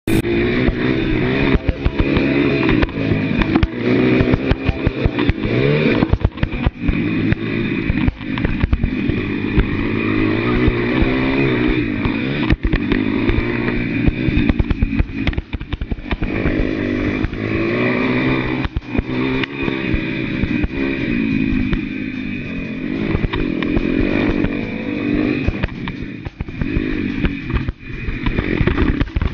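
Pit bike's small single-cylinder engine revving hard, its pitch rising and falling over and over as the bike is ridden around a dirt track, with frequent short knocks and rattles throughout.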